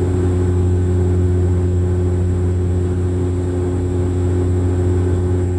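Cabin drone of a Bombardier Q400 turboprop airliner's engine and six-bladed propeller in the climb, heard inside the cabin beside the propeller: a steady low hum with several fixed tones and a thin high whine.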